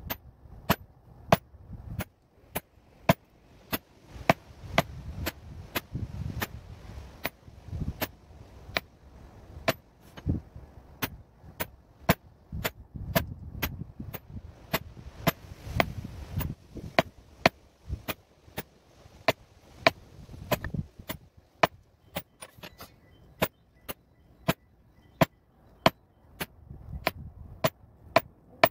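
A mallet striking a metal leather-stamping tool held on a leather belt resting on a granite slab: steady sharp taps, about two a second, as a border pattern is stamped along the belt's edge.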